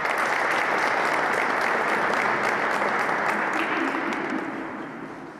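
An audience applauding, the clapping holding strong and then dying away over the last couple of seconds.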